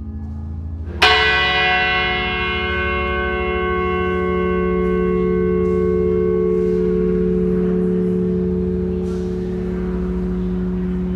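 A large bell struck once about a second in, ringing on with many overtones in a long, slow decay over a low, steady drone.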